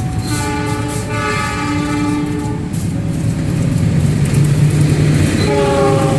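Diesel locomotive's multi-note air horn sounding a long blast of about two and a half seconds, then a second short blast near the end. This is the horn signal Indonesian railways call Semboyan 35 (S35). Under it, the train's running rumble grows louder.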